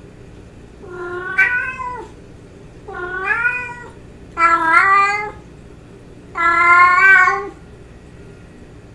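Domestic cat meowing: four drawn-out meows, each about a second long and rising in pitch, a second or so apart.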